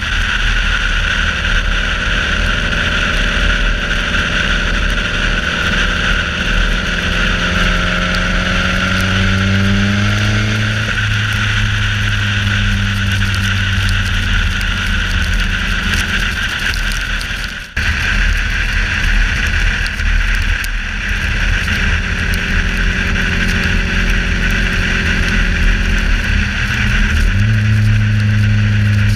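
Turbocharged Subaru flat-four cruising with its 3-inch electric exhaust cutout open, so the exhaust runs nearly unmuffled, over steady wind and tyre noise on the outside-mounted microphone. The engine note climbs about a third of the way in, drops out briefly past halfway, and rises again near the end.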